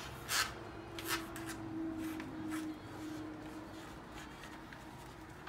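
A cotton swab dipped in baking-soda ink writing on paper: a few short, scratchy strokes.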